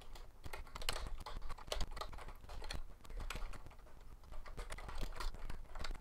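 Typing on a computer keyboard: a run of quick, irregular keystrokes, several a second.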